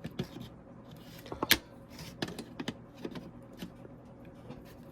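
Small clicks and light scrapes of needle-nose pliers working a thin metal detent spring up and out of a Mk3 VW Cabrio's plastic heater control unit, with one sharper click about one and a half seconds in.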